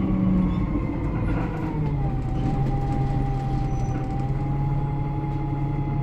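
ADL Enviro 300 single-deck bus running, heard on board, with a thin high-pitched squeal that slides down a little about two seconds in and then holds steady. The engine note drops about 1.5 to 2 seconds in.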